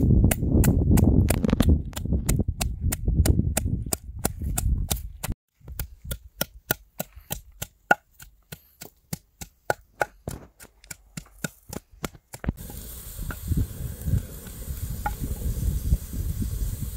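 Knife chopping on a wooden cutting board in a steady rhythm of about three sharp strikes a second. Over a low rumble at first, then alone. Near the end the strikes give way to a steady hiss with a few dull thuds.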